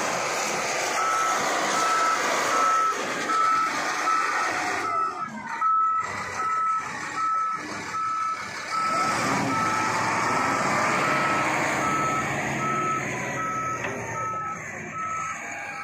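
Heavy-equipment reversing alarm beeping steadily, about two beeps a second, over the running diesel engine of a wheel loader.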